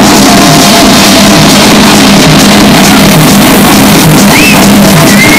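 Loud techno DJ set playing through a club sound system, a dense steady mix with a repeating bass pattern. A short high tone rises and falls near the end.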